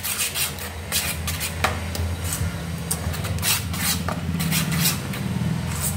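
A steel spoon beats rava idli batter in a stainless steel bowl: quick, repeated scraping and slapping strokes against the bowl, with a steady low hum underneath. The batter is being whipped after baking soda has gone in, to make it light and airy.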